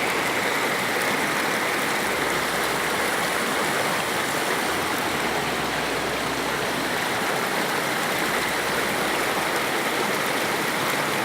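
Waterfall and river water rushing, a steady even roar of falling and flowing water.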